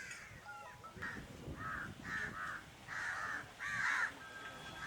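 Crows cawing, a run of about five or six harsh caws in close succession.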